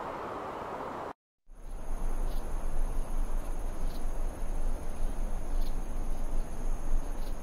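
A steady rushing noise cuts off about a second in. After a brief silence, crickets trill steadily and high-pitched over a low rumble, with a faint tick about every second and a half.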